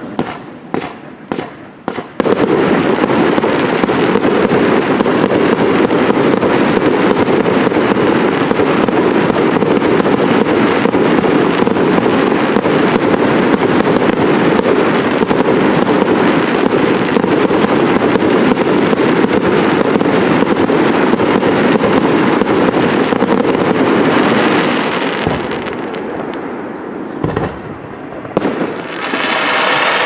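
Aerial fireworks display: a few separate bangs, then a dense, unbroken barrage of rapid bangs from exploding shells for about twenty seconds, which eases off near the end before picking up again.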